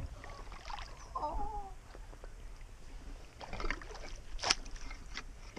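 Creek water sloshing and splashing around a person's waders as they wade, with a few sharper splashes about four seconds in.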